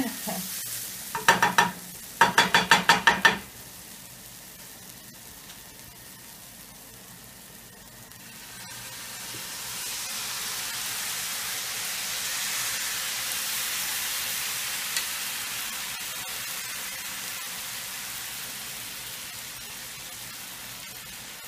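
Utensils clattering in two quick rhythmic runs near the start. Then the frying pan of beet and onion sizzles louder from about eight seconds in, as tomato paste is poured into the hot pan, and the sizzle slowly dies down.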